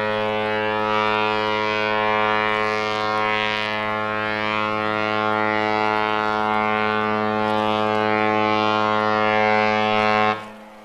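A large cruise ship's horn sounding one long, steady, deep blast that cuts off abruptly near the end.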